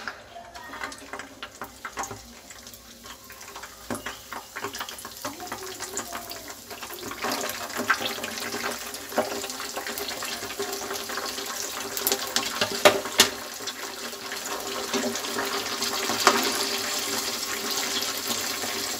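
Cornflake-coated potato rolls deep-frying in hot oil, sizzling with many small crackles and pops, the sizzle growing louder about seven seconds in as more rolls go into the oil.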